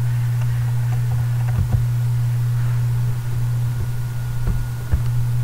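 Steady low hum, with a few faint soft knocks about a second and a half in and again near the end.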